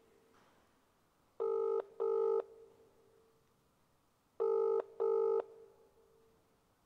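British telephone ringback tone, the double ring heard while a call rings out waiting to be answered. Two short burrs close together, twice, about three seconds apart.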